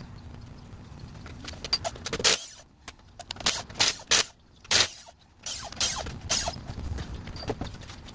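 A string of irregular sharp clicks and knocks with short quiet gaps between them, starting a couple of seconds in.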